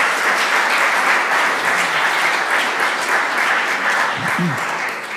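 Audience applauding, a dense steady clapping that begins to thin near the end, with a short voice heard over it about four seconds in.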